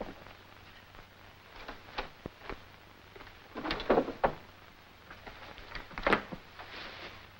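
A wooden dresser drawer being worked, with short wooden clunks and scrapes among a few lighter knocks. The loudest clunks come about four seconds in and again about six seconds in.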